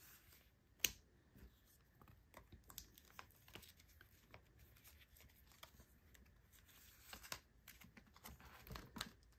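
Faint crinkling and small clicks of clear plastic binder sleeve pockets as photocards are slid into them, with a sharper click just under a second in.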